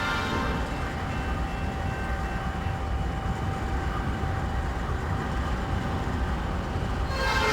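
Freight train with Illinois Central EMD SD70 diesel locomotives running, a steady low rumble. A horn blast trails off at the start, and music comes in near the end.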